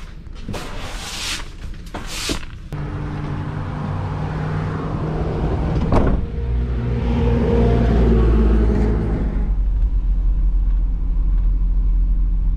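Two short hissing, rustling bursts in the first couple of seconds, then a cargo van's engine running and pulling away. Its note climbs as it accelerates, from about six to nine seconds in, then settles into a steady rumble of driving on the road.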